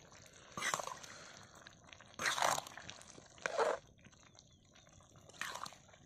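Steel spatula stirring and scraping a thick, wet vegetable curry in a black iron kadai, in four short strokes spread through a few seconds.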